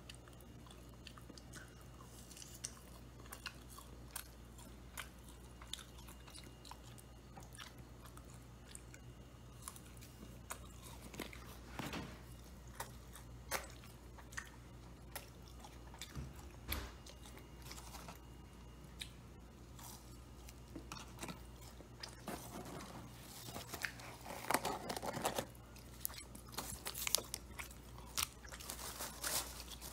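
Close-up chewing and biting of fried Chicken McNuggets, with soft crunching spread through. Near the end the crackling grows denser and louder as a plastic sauce packet is handled and crinkled.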